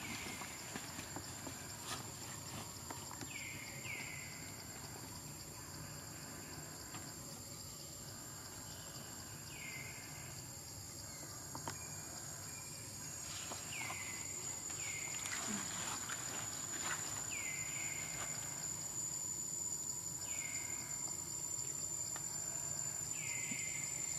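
Forest ambience: a steady high-pitched insect drone, crickets or similar. Over it comes a short falling call, singly or in pairs, every few seconds, with a few faint clicks.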